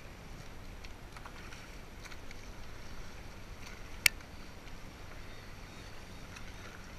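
Kayak paddling through choppy water: a steady wash of water and wind noise with a low rumble, and one sharp knock about four seconds in.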